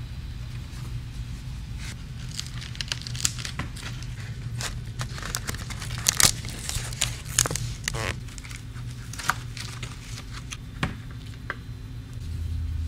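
Irregular scraping, crinkling and tearing of old tacked-on covering being worked off the wooden case of an 1850s melodeon by hand and with a chisel, over a steady low hum. A louder low drone sets in at the very end.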